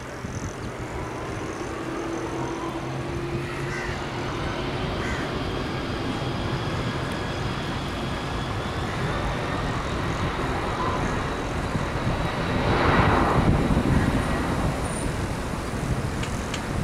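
Boeing 747-400 jet engines at takeoff power during the takeoff roll: a steady jet roar with a faint rising whine, growing louder and loudest about thirteen seconds in.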